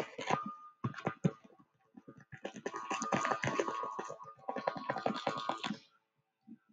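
Bursts of rapid scratchy clicking from a computer pointing device dragged and pressed while words are handwritten on screen. There are four bursts with short pauses between them, the longest in the middle, and the sound stops about six seconds in.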